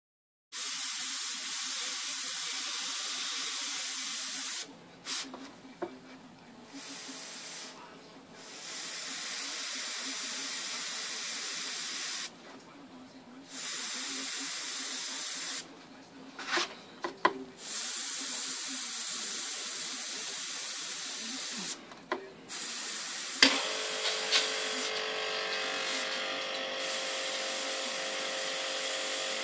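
Airbrush spraying paint: a steady hiss of air from the nozzle that cuts out and comes back several times as the trigger is let go and pressed again. Near the end a sharp click is followed by a steady hum under the hiss.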